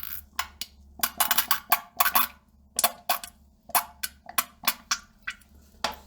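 Sputtering fart sound: a string of short, irregular pops a few tenths of a second apart.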